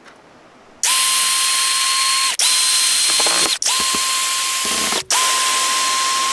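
Cordless drill-driver backing screws out of a plywood crate lid: its motor runs with a steady high whine in four runs of about a second and a half each, with brief stops between.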